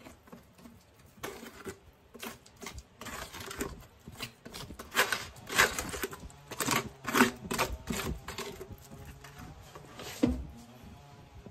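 Cement mortar being mixed and scooped by hand in a plastic bucket: irregular scrapes and knocks of the mix against the plastic, busiest in the middle, with a low thump near the end.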